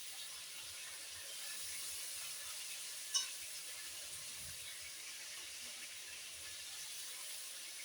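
Chicken frying in hot oil in a pot, a steady sizzle, with one sharp click about three seconds in.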